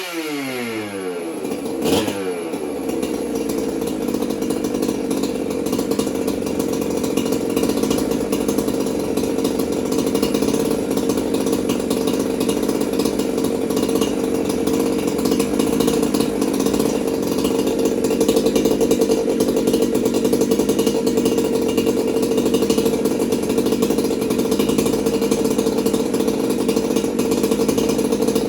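Freshly assembled Jonsered 2065 two-stroke chainsaw dropping from high revs at the start, blipped briefly about two seconds in, then idling steadily.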